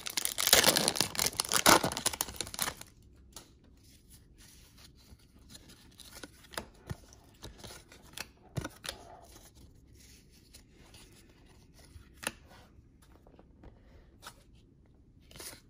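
A trading-card pack wrapper being torn open and crinkled for nearly three seconds, then scattered soft clicks and taps as the cards are handled and flipped through.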